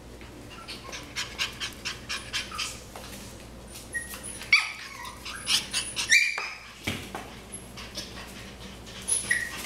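Young Cavalier King Charles Spaniel puppies yipping and whimpering in play: a quick run of short yips, then a few louder, higher, longer yips about halfway through and another near the end.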